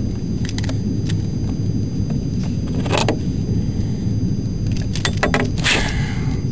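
Metal clinking of fishing pliers, lip gripper and lure hooks as a plug is worked free from a pike's mouth, a few sharp clicks about halfway and near the end, over a steady low rumble.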